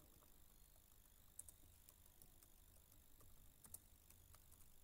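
Near silence with a low steady hum and a few faint computer-keyboard clicks as text is typed.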